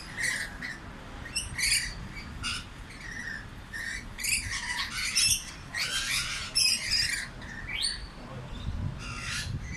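Pet birds chirping and squawking in many short, high calls, busiest in the middle, with a quick rising whistle about eight seconds in.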